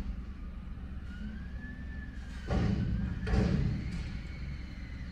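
Front-loading garbage truck lifting a dumpster over its cab, heard through a car window: a steady diesel engine rumble, a faint whine that rises and falls about a second in, then two loud thuds about two and a half and three and a half seconds in.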